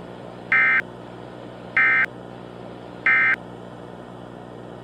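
Emergency Alert System end-of-message signal: three short bursts of SAME digital data tones, about a second apart, over a steady low hum.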